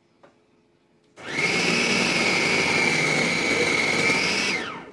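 Electric food processor shredding Brussels sprouts pushed down its feed chute. The motor starts about a second in with a loud, steady high whine, then winds down near the end as it is switched off.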